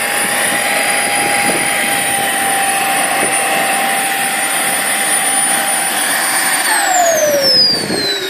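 KingTech K80 model jet turbine running at a steady high whine over a rushing noise, then shut down about seven seconds in, its whine falling steadily in pitch as it spools down.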